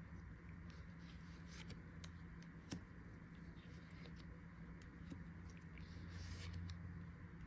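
Faint clicks and light rustling of trading cards and their packaging being handled, with a brief rustle about six seconds in, over a steady low electrical hum.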